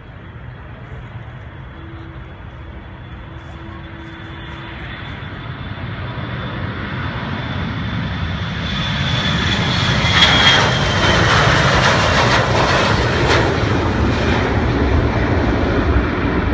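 Jet airliner taking off: the engines at takeoff thrust grow steadily louder as it speeds down the runway and passes, with a high whine that slides down in pitch about ten seconds in, then a loud steady roar as it climbs away.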